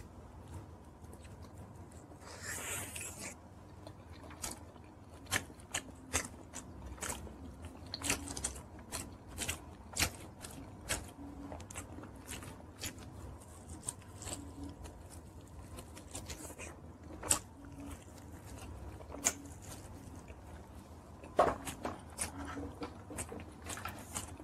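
A person chewing and biting into a chicken wing: many short, sharp crunching and wet mouth clicks at an uneven pace, with a longer crackling bite about two and a half seconds in and one louder click near the end.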